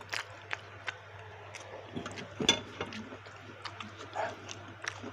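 Close-up eating sounds of someone eating baso aci: irregular small clicks and smacks from the mouth and utensils, over a steady low hum.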